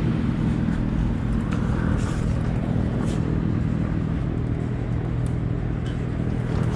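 Honda VTX1300's V-twin engine idling steadily, with a few faint light ticks over it.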